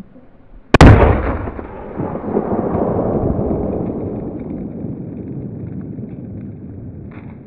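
A 'šok' firecracker exploding under an upturned enamel cooking pot: one sharp bang about three-quarters of a second in, then a long rumbling tail that fades slowly. The shooter puts the weak blast down to lost compression through a large hole in the pot.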